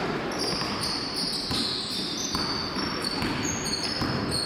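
Basketball dribbled on a hardwood gym floor, with many short high sneaker squeaks as players run and cut.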